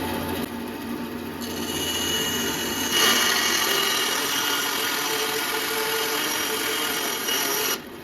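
A restored 1950s Delta Homecraft 10-inch band saw running, then cutting wood. The sound turns brighter and louder from about three seconds in, and cuts off suddenly near the end.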